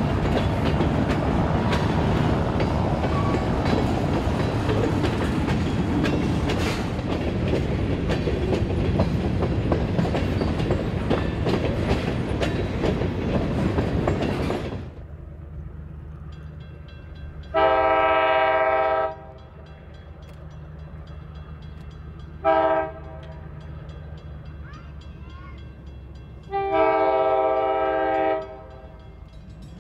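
Freight cars rolling past: a steady wheel-on-rail rumble with clicking and clatter for about the first half. Then, after a cut, the TP&W GP15-1 diesel locomotive runs with a low hum as it approaches, and its multi-note air horn sounds three times: a long blast, a short one, then another long one.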